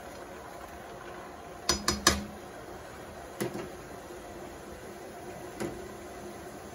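A spoon knocking against a stainless steel cooking pot: three quick ringing clinks about two seconds in, then two lighter single knocks later.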